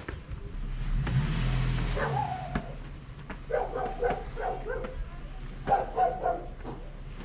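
Dog barking in two quick runs of short barks, about four a second, with a car passing about a second in.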